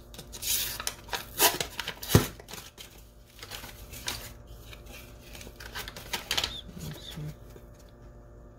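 Paper label tearing and crackling as it is peeled off a refrigerated crescent-roll dough can, with a sharp pop about two seconds in as the cardboard tube bursts open along its seam. Then rustling of cardboard and foil as the dough is worked out of the can.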